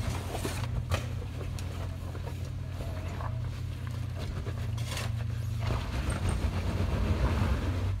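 Land Rover LR3 engine running under load at low speed as the truck crawls up a steep rocky gully, a steady low drone that shifts in pitch late on, with a few sharp knocks.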